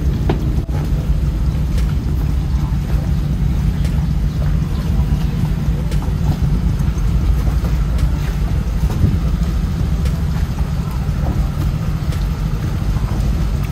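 A motor runs steadily at a constant pitch, with wind noise on the microphone.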